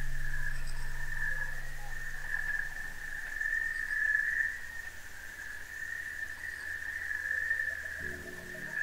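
A steady high-pitched animal chorus, like insects or frogs, that wavers slightly without a break. A low hum underneath fades out a few seconds in, and a few soft low tones sound near the end.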